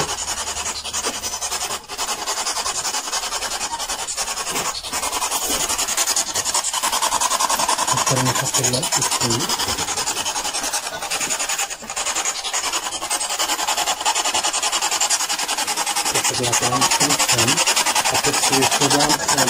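Loud radio static with a fast, even chopping, the sound of a spirit box sweeping rapidly through radio stations.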